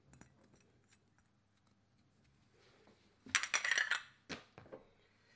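China crockery clinking: faint light clicks, then a short burst of clattering about three seconds in, followed by two softer knocks.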